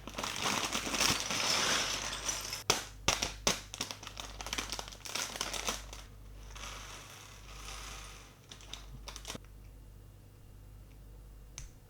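A plastic Lego parts bag crinkling as it is opened and handled, with several sharp clicks of pieces, for about six seconds; it then fades to fainter rustling and stops at around nine seconds, leaving a couple of lone clicks near the end.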